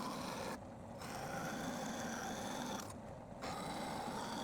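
A machine tool running steadily while cutting a piece of steel tube for the puller body, with a steady whine. The sound drops out briefly twice, just under a second in and about three seconds in.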